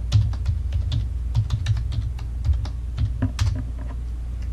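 Typing on a computer keyboard: a quick, uneven run of key clicks as a login password is entered, stopping about three and a half seconds in. A steady low hum runs underneath.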